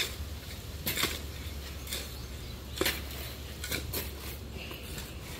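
Shovels scraping and scooping sand and soil, a handful of short, irregular strokes about a second apart.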